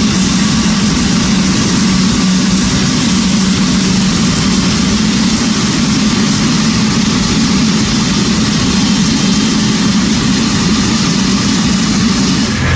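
Boeing 777's GE90 high-bypass turbofan engine running steadily and loud: a strong low hum with a broad hiss above it.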